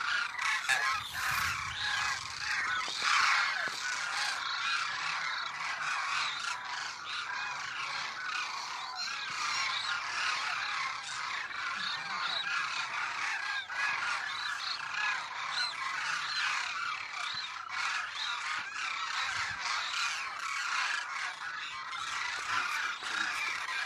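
A flock of demoiselle cranes calling in flight: many overlapping calls keep up without a break.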